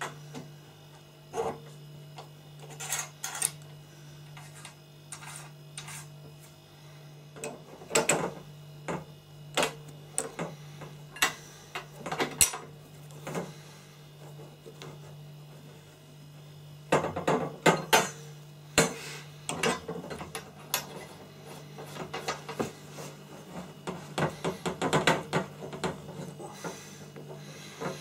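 Metal spanners clinking and scraping on a brass compression fitting as it is tightened onto copper pipe: irregular clicks and knocks that come in clusters, busiest about two-thirds of the way through.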